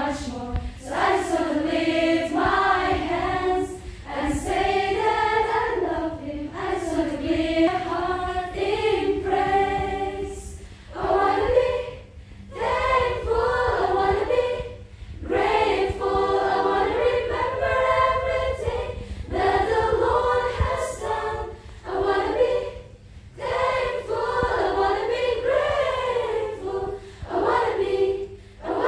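A group of young women singing together, with no instruments heard, in phrases broken by short pauses.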